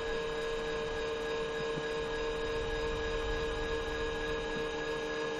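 A 12-volt gear-driven linear actuator runs as it raises a sliding chicken-coop door, giving a steady, even electric motor whine.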